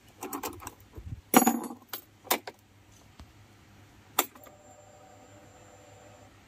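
Scooter ignition key and key ring being fitted and worked in a newly installed lock set: rattling, jangling and clicks over the first couple of seconds, then one sharp click as the key is turned on about four seconds in, followed by a faint steady hum for about two seconds as the ignition comes on.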